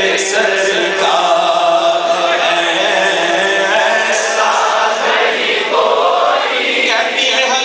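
A man singing a naat, an Urdu devotional poem, into a microphone, holding long notes that waver and bend in pitch.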